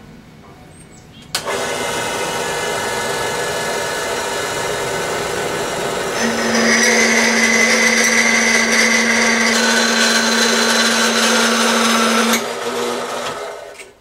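Horizontal metal-cutting bandsaw started about a second in and running steadily. About six seconds in the blade meets the metal stock and a louder steady whine joins as it cuts. The whine ends about twelve seconds in as the cut finishes, and the saw winds down to a stop.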